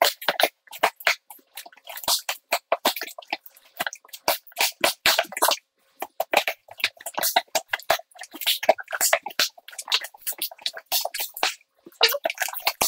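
Fast-forwarded scraping, scratching and tearing at a cardboard box's packing tape, a rapid jumble of short scratchy crackles as a pencil is jabbed through and dragged along the tape.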